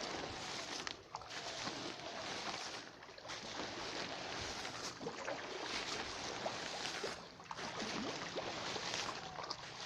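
Irregular water splashing and churning at the surface of a fish pond, with many small ticks, as fish rise to take scattered feed.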